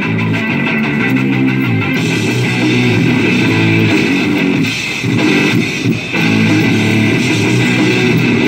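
Rock music with electric guitar and bass playing on a truck's cab radio.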